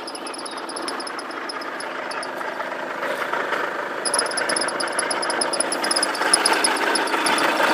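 VW Golf Mk6 TDI diesel running, with a fast, even, high-pitched ticking over it that drops out for a couple of seconds midway and then comes back; this ticking is the strange noise being shown. The overall sound grows slowly louder.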